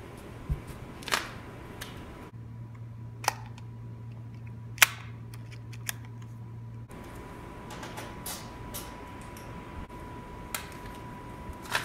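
Scattered single sharp clicks, about nine in all, the loudest about five seconds in, from a Wera Kraftform 98 pistol-grip ratchet screwdriver being handled and worked.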